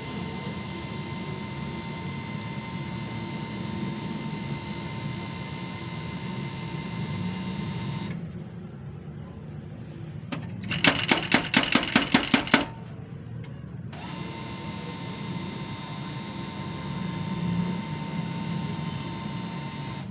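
HP LaserJet laser printer running with a steady hum. A little past halfway comes a quick run of about nine sharp clicks, about five a second, from its mechanism.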